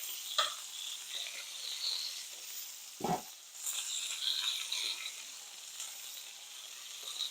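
Chicken breasts sizzling as they sear in hot olive oil in a pan, a steady crackling hiss, with two light knocks, about half a second in and about three seconds in.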